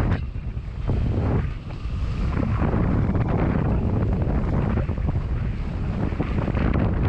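Heavy wind buffeting the microphone over water rushing and splashing past the hulls of a Hobie 16 catamaran sailing fast in strong wind. The rush eases briefly twice in the first few seconds, then holds steady.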